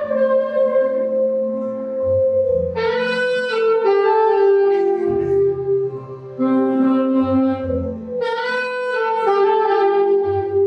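Saxophone playing a slow melody of long held notes over a low bass accompaniment.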